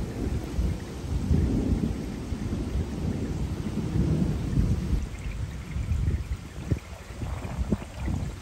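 Summer thunderstorm: rain falling with a low rumble that swells and fades, easing off about five seconds in.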